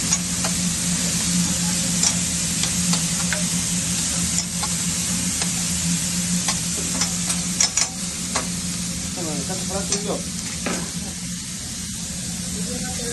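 Food sizzling on a hot steel flat-top griddle while metal spatulas scrape and clack against the plate, turning onions and meat. The clacking stops near the end, leaving the sizzle over a steady low hum.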